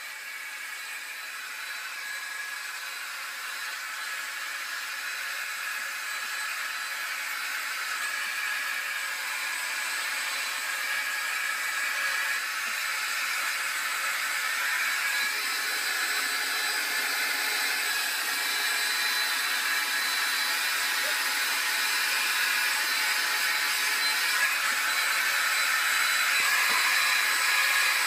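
Handheld hair dryer running steadily: an airy rush with a faint high whine, growing gradually louder.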